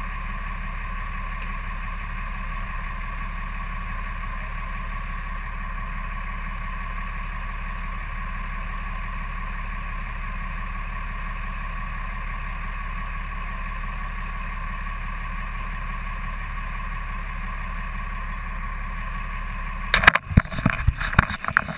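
Truck engine idling with a steady, unchanging drone. About twenty seconds in, loud irregular knocks and rustling break in close to the microphone.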